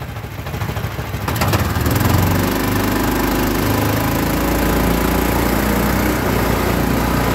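Small gas engine of a Swamprunner longtail mud motor being throttled up from idle about a second in. Its pitch rises, then it holds steady near wide open, driving the jon boat through shallow water.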